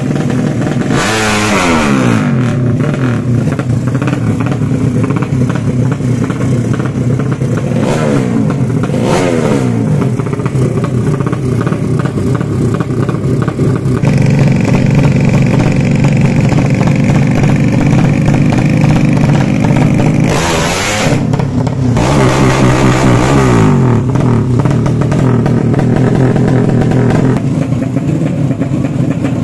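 Engine of a 200 cc underbone drag bike running in place and being revved again and again, its note sweeping up and falling back between stretches of steady running. The clearest rev sweeps come about a second in, around eight and nine seconds in, and twice in the last third.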